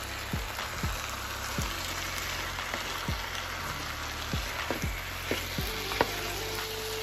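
Sliced potatoes and onions sizzling in butter in a skillet, stirred with a wooden spoon that knocks and scrapes against the pan every half second or so, with one sharper knock about six seconds in.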